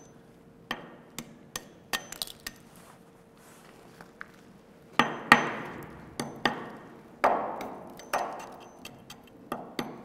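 Steel hand tool striking and chipping at the rusted base of a steel column, knocking loose pack rust: a run of irregular sharp metal knocks with a short ring after each. The knocks are lighter and sparse at first, then louder and more frequent from about halfway. The pack rust is corrosion that is thinning the beam.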